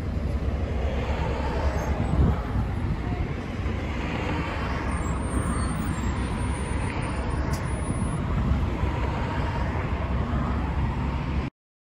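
Garbage truck engines running steadily amid yard traffic noise, then cut off abruptly near the end.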